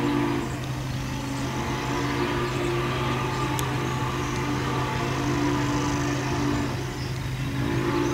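Steady mechanical running hum of a vehicle, a low drone with a few steady tones; the higher tone drops out briefly about half a second in and again near the end.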